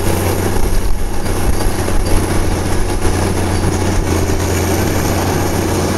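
Inter-Drain 2050 GP tracked tile plow's engine running steadily under load as the machine crawls forward pulling its plow through the soil. It makes a deep, continuous drone.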